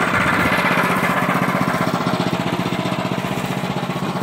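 Range Road RR5022 portable band sawmill running, its gas engine giving a fast, steady throb while the band blade saws through a spruce log.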